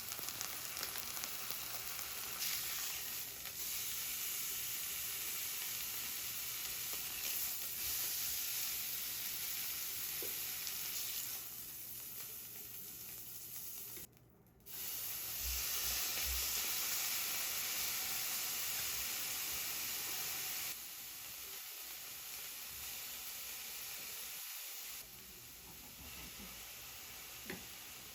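Food sizzling in a hot frying pan, a steady hiss that breaks off briefly about halfway and turns quieter in steps near the end.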